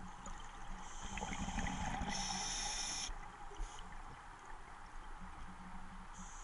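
Scuba diver breathing through a regulator underwater: a hissing inhalation about two seconds in, lasting about a second, with gurgling and trickling from exhaled bubbles.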